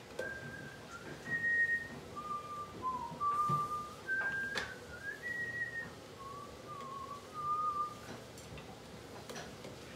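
A person whistling a short tune: about a dozen held notes stepping up and down, stopping about eight seconds in. A couple of sharp clicks sound in the middle.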